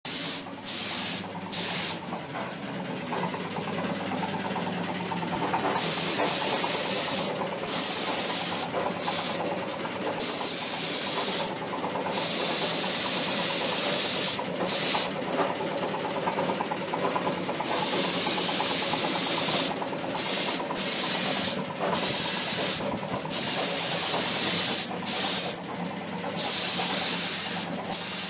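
Gravity-feed paint spray gun hissing as it sprays paint, in repeated trigger bursts lasting from under a second to about two seconds, with short pauses between. A steady machine hum runs underneath.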